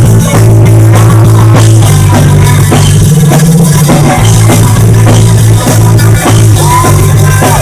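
Live rock band playing an instrumental passage with no singing: electric guitar, bass notes and a drum kit, loud.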